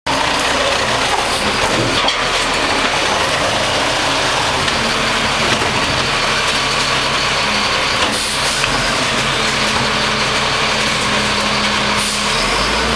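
Garbage truck engine running steadily, with a few short sharp noises about two, eight and twelve seconds in.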